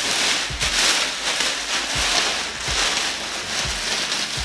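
Clear plastic wrapping rustling and crinkling steadily as it is pulled off an electric skateboard, with a few soft low bumps from handling the board.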